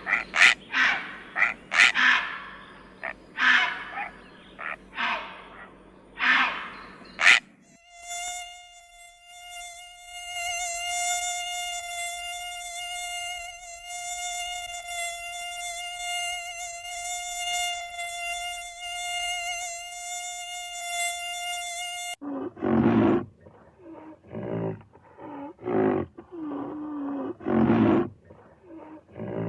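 A run of short animal calls, then a steady insect buzz at one unchanging pitch for about fourteen seconds, then a series of short, loud animal calls.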